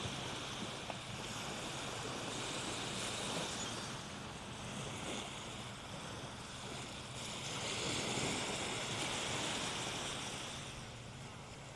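Gulf surf washing ashore: a steady hiss of breaking waves that swells a few seconds in and again past the middle.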